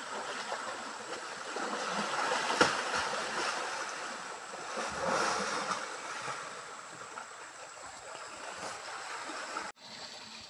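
Muddy stream water churning and splashing as two elephants wrestle in it, with one sharper, louder hit about two and a half seconds in. The churning cuts off suddenly shortly before the end, leaving quieter water noise.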